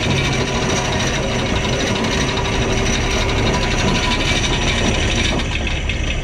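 Anchor line running out fast through a deck fitting as the anchor is dropped: a rapid, continuous rattle over a steady low hum.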